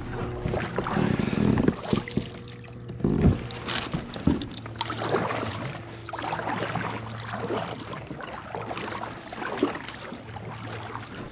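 Kayak paddle strokes: the blade dipping and splashing in calm water at an uneven pace, with a few sharp knocks. A steady low hum runs underneath.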